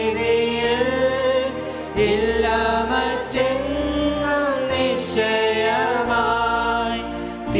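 Singers performing a hymn over instrumental accompaniment, with long held notes and the bass line moving every second or two.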